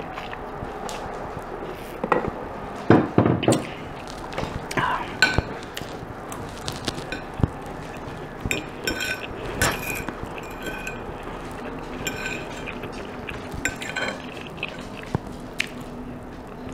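Metal fork clinking and scraping against a ceramic dinner plate in short, scattered strokes, some with a brief ring. A few louder knocks come about three seconds in, from the glass mason jar being set down on the table.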